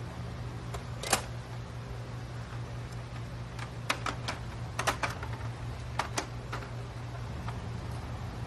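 Sharp plastic clicks and clacks from a Honda Motocompo scooter's body, seat and latches being handled: one loud click about a second in, a quick cluster around four to five seconds, and two more around six seconds. A steady low hum runs underneath.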